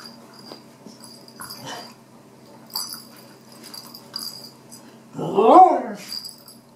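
Dogs at play: soft clicks and rustles of toys being mouthed, then about five seconds in one loud dog call, under a second long, that rises and falls in pitch.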